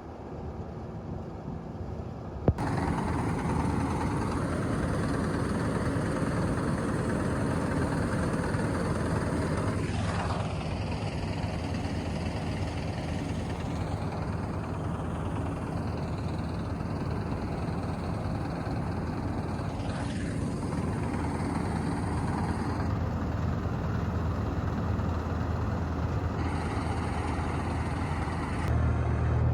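Combine harvester running steadily while harvesting paddy, its engine and threshing machinery making a continuous drone, with abrupt changes in tone at several points.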